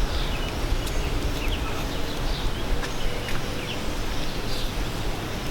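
Small birds chirping, with many short high notes scattered throughout, over a steady low rumble and a few faint clicks.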